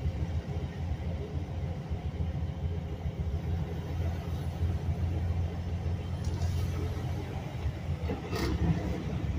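Steady low rumble of a truck's engine and road noise heard inside the cab while it moves slowly, with one brief sharp sound near the end.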